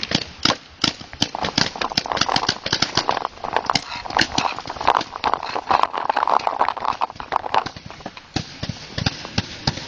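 Paintball markers firing in rapid, irregular volleys, several sharp pops a second. A rushing noise swells in the middle and fades out again.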